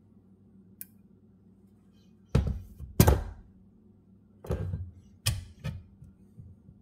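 A run of heavy metal knocks and clanks from working a bent steel mower deck-height lever held in a bench vise: about five blows, irregular, the loudest about three seconds in.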